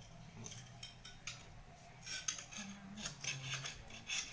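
Light metallic clicking and scraping, a run of irregular clicks a few times a second, from hand work with thin tin-can sheet.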